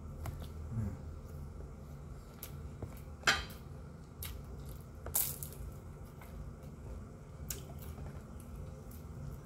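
Close-up eating sounds of someone eating fried chicken and rice with their hands: wet chewing and lip smacks, with scattered small clicks and two sharper clicks, the loudest about three seconds in and another about five seconds in.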